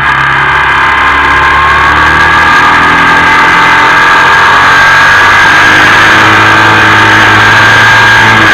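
Motorcycle under way at road speed, its engine running steadily under light throttle with wind noise at the fork-mounted microphone and a steady high whine over it. The low engine note changes about two and a half seconds in.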